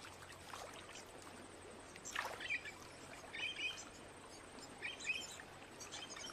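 Quiet water ambience, a soft trickling and lapping, with a few short bird chirps about two seconds in, midway and near the end.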